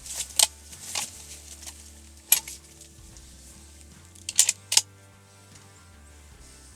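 A handful of sharp clicks and knocks, like gear being handled, over quiet background music.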